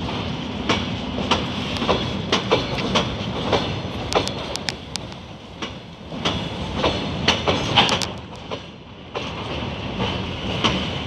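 Empty railway flatcars of a freight train rolling past, their wheels clattering over rail joints in irregular clicks and knocks over a steady rumble.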